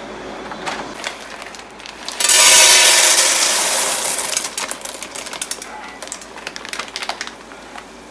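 Dry pasta shells going into hot oil in a pan: a sudden loud sizzle about two seconds in that fades over the next two seconds, then scattered crackles and clicks as the shells fry.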